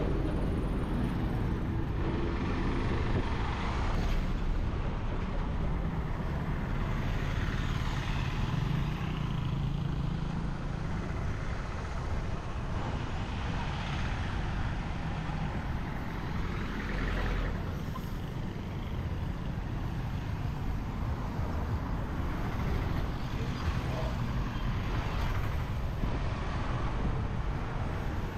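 Roadside street traffic: a heavy truck passing close near the start, then motorbikes and other vehicles going by over a steady engine and road rumble.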